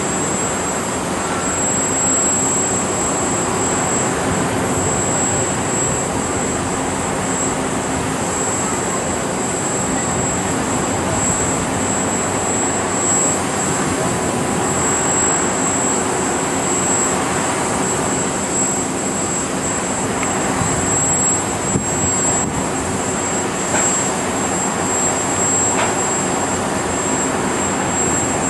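Four-engine Boeing 747's jet engines on landing approach: a steady, even rushing with no rise or fall.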